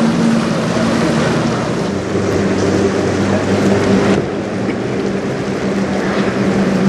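A motoring sailboat's engine drones steadily under a loud rush of wind on the microphone and choppy water. The noise changes abruptly about four seconds in.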